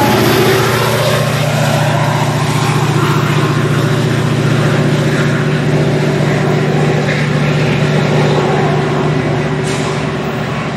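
Metra MP36PH-3S diesel locomotive's engine working hard under throttle as it shoves the train away, a steady low engine drone that slowly grows fainter near the end.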